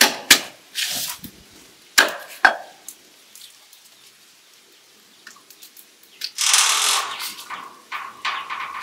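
Knife chopping the stalk ends off fresh ears of sweet corn on a wooden board: a few sharp chops in the first two and a half seconds. About six and a half seconds in, a loud dry tearing rustle as green husks are ripped off a cob, then smaller rustles.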